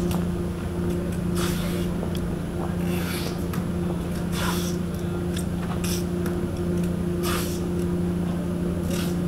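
A poster being brushed onto a street hoarding: a short swish about every second and a half, over a steady low hum.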